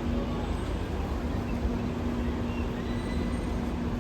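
Train running steadily: a constant low rumble with a steady hum over it.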